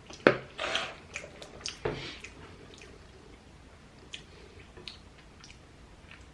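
A person biting into and chewing crunchy food close to the microphone: a sharp crunch about a quarter of a second in, a few louder crunches in the first two seconds, then softer, scattered chewing clicks.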